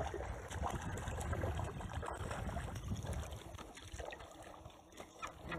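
A hooked perch splashing and thrashing at the water's surface as it is drawn in on the line, with water lapping and a steady low rumble of wind on the microphone.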